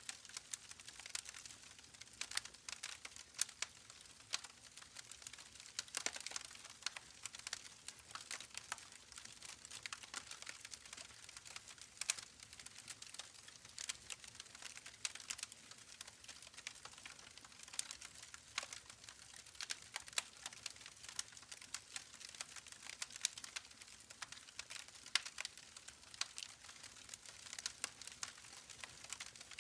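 Campfire crackling: irregular sharp snaps and pops, several a second, over a faint steady rush of a babbling creek.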